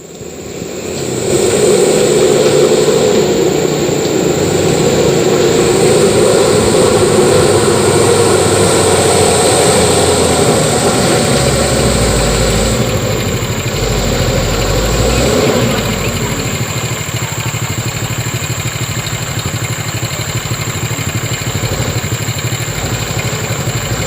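Mitsubishi Canter truck's diesel engine working hard and loud, then easing off to a quieter, steady run about sixteen seconds in.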